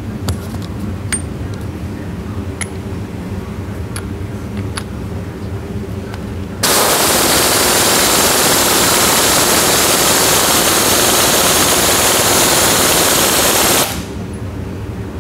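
Impact wrench hammering on the 1-1/8 in lock nut of a mud motor's drive shaft. It starts abruptly about six and a half seconds in, runs loud and even for about seven seconds, and cuts off sharply.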